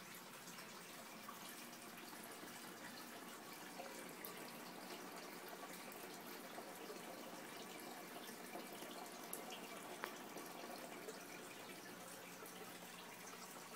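Faint, steady trickling and dripping of circulating water in a home aquarium, with a sharp tick about ten seconds in.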